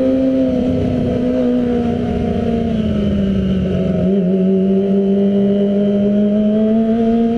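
Kawasaki ZX25R 250 cc inline-four engine with a full-system Arrow exhaust running under way at a high, steady pitch. It sags a little about four seconds in, then slowly climbs again.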